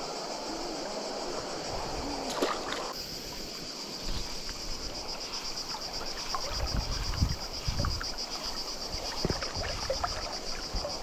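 Insects chirring steadily in a high, evenly pulsing band over the rush of a river, with low rumbles from about four seconds in.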